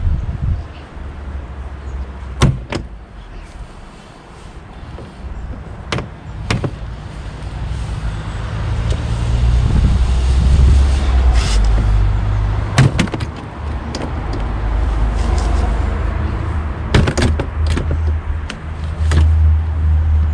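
Plastic retaining clips of a Mercedes W203 front door card snapping loose as the panel is pried off with a trim tool: sharp cracks scattered through, several in quick pairs, over a low rumble.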